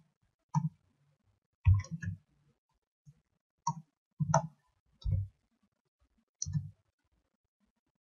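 Computer keyboard keys pressed one at a time while typing, about eight separate clicks at uneven spacing.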